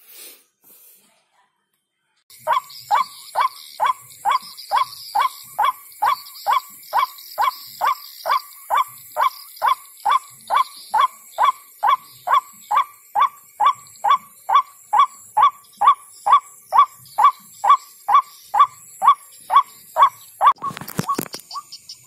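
White-breasted waterhen (ruak-ruak) call played from an MP3 bird caller through a loudspeaker to lure waterhens: a steady, evenly spaced series of short calls, a little over two a second, starting about two seconds in. Near the end the calls give way to a brief burst of rustling.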